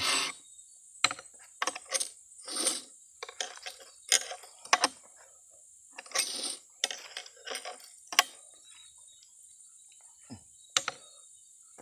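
Round file rasping across the cutters of a Stihl 070 chainsaw chain in short separate strokes, with sharp metallic clicks of file and chain links between them, the strokes thinning out after about eight seconds. This is hand-sharpening of a worn-down chain.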